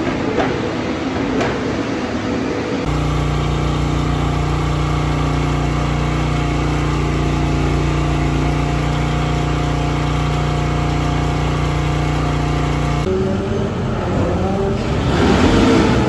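Farm machinery running, changing at two cuts: a Strautmann feed mixer wagon at first, then a steady motor hum from an automated calf milk feeder cart for about ten seconds, then the self-propelled Strautmann Verti-Mix 2002 SF Double feed mixer working at a feed pile, growing louder near the end.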